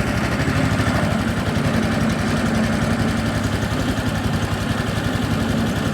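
Small boat engine running steadily at an even speed, with a fast regular pulse.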